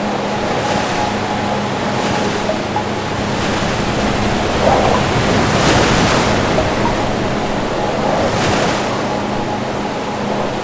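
Wind and choppy sea around a small boat in strong wind: waves splashing and spraying in surges every second or two, the biggest about halfway through, with wind buffeting the microphone and a steady low hum underneath.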